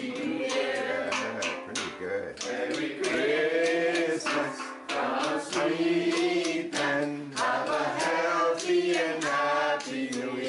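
A mixed group of voices singing together, with steel pans struck along: many sharp strokes under the singing.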